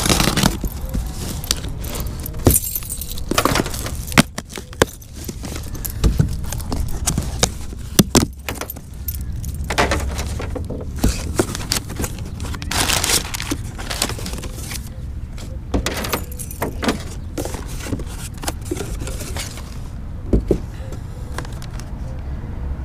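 A cardboard parcel being opened by hand: a key scraping through the packing tape with the key ring jangling, then the flaps pulled open and crumpled packing paper rustling as it is pulled out, with many sharp clicks and scratches throughout.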